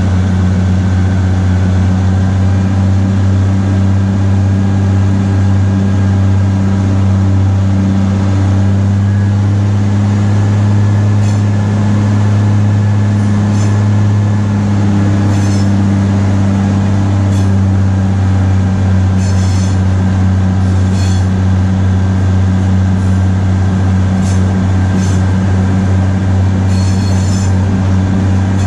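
1943 GE 80-ton diesel-electric switcher under way, its diesel engine droning steadily. From about eleven seconds in, a series of short, high wheel squeals sound as the locomotive takes the curving track.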